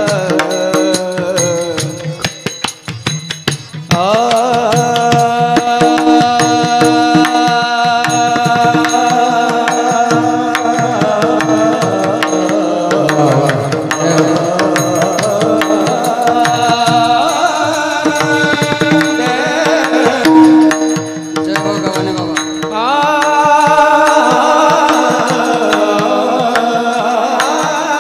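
Devotional bhajan: a high solo voice sings long, gliding held notes over a steady drone, with hand-drum strokes keeping the beat. The music thins out briefly about two to four seconds in, then returns at full strength.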